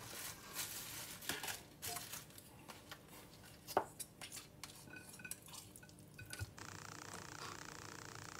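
Dishes and cutlery being handled on a kitchen counter: scattered knocks and clicks, with a few short ringing clinks. About two-thirds of the way in, a steady hiss starts and carries on.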